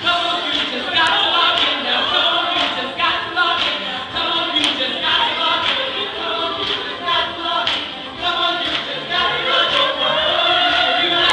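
Choir of many voices singing a gospel song together.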